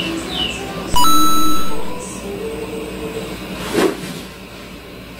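Golf club swishing through the air on an empty practice swing, just before four seconds in, under background music. About a second in, a loud electronic tone sounds for nearly a second and is the loudest sound.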